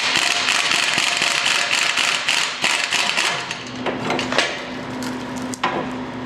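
Impact wrench with a 35 mm socket hammering rapidly on a front axle nut for about three and a half seconds, then stopping; a steady hum and a couple of single clicks follow.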